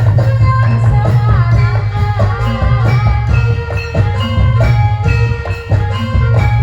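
Live Javanese barongan/jaranan music played loud through a sound system: drums keep a steady beat under heavy bass and a wavering melodic line that bends up and down.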